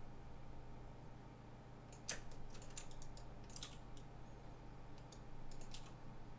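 Computer mouse and keyboard clicks, scattered and irregular, starting about two seconds in over a faint steady electrical hum.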